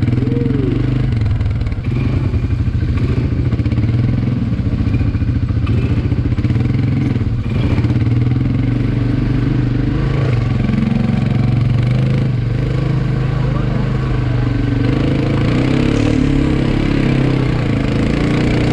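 ATV (quad bike) engine running steadily while riding.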